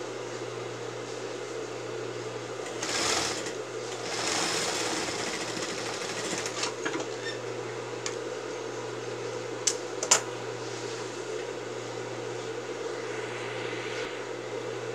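Industrial lockstitch sewing machine with its motor humming steadily, louder rushes of running a few seconds in, and two sharp clicks near the middle.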